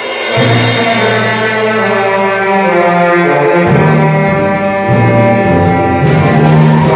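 A youth brass and reed band playing a loud, full passage: the band swells and comes in together about half a second in, then holds sustained chords over heavy low brass notes that change every second or so.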